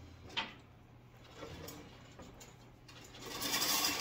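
Folding metal grooming table being pushed forward across the garage floor. A light knock comes about half a second in, then the legs scrape loudly on the floor for about a second near the end.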